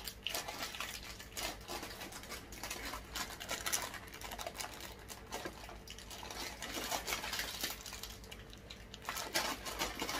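Plastic sweet wrapper crinkling and rustling in the hands as it is worked at and pulled to get it open, with irregular small crackles throughout.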